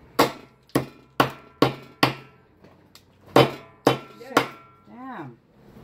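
A hammer knocking on seafood shells on a table to crack them: a run of sharp blows, five in the first two seconds and a few more about a second later. A short vocal sound comes near the end.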